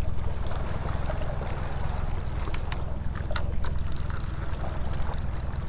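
Boat engine idling steadily, a low even hum, with a few light clicks about halfway through.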